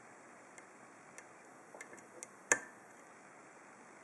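Lock pick working the pin stack of an ABUS 34/55 padlock under tension: faint, irregular metallic clicks, with one sharper click about two and a half seconds in and another near the end.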